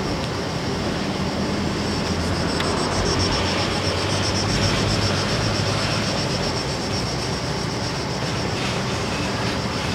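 Car driving slowly, heard from inside the cabin: a steady low engine hum with tyre and road noise, and a high hiss above it.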